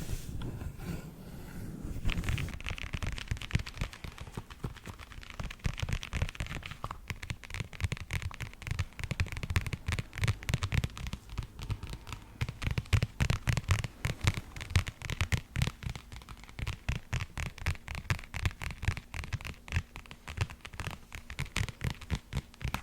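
Fast, light tapping on a hard object, many taps a second without a break, with a scratchy hiss added from about two to seven seconds in.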